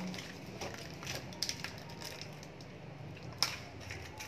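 Plastic wrapping and bubble wrap crinkling and rustling as a shrink-wrapped box is handled and opened, with several sharp crackles, the loudest about three and a half seconds in.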